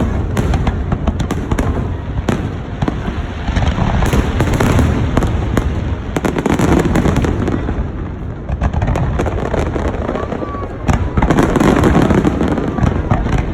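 Fireworks display going off in continuous quick succession: a dense run of booms and crackles, growing louder near the end.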